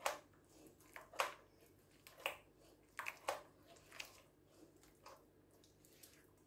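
A hand squeezing and mixing a soft, wet batter with lumps in a bowl: short squelching squishes, roughly one a second, a couple of them close together about three seconds in.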